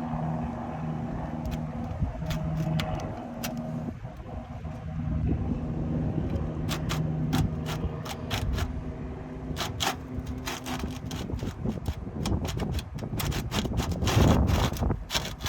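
A steady engine hum, like a motor vehicle running close by, with many sharp clicks and knocks from about six seconds in, thickest near the end.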